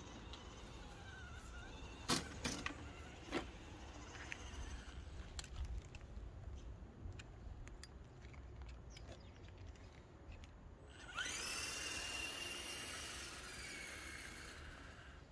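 Electric motor and gearbox of an RC monster truck whining as it drives, rising in pitch about eleven seconds in and then holding steady. A few sharp knocks come about two to three seconds in.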